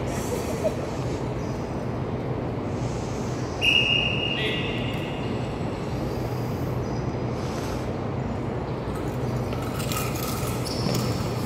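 Steady background noise of a quiet sports hall with a low hum, broken about four seconds in by a brief high-pitched tone. Near the end a goalball is bowled along the wooden floor, its bells jingling as it rolls.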